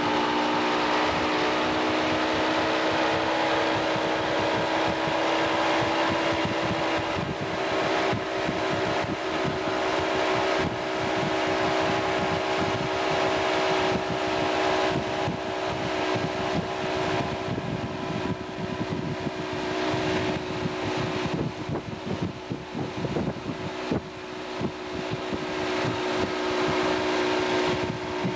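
Motorboat engine running steadily at towing speed, its note holding nearly constant. Wind buffets the microphone in uneven gusts, most strongly in the second half.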